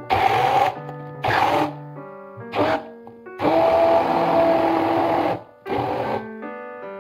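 Hand-held immersion blender blending soaked nuts with water to make nut milk, switched on in several short pulses and then run for about two seconds with a steady motor whine. Background music with plucked notes plays in the gaps between pulses.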